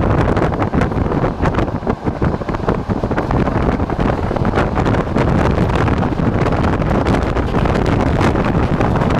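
Moving passenger train: steady rumble of wheels on the rails under loud wind buffeting the microphone, with a constant crackle of gusts.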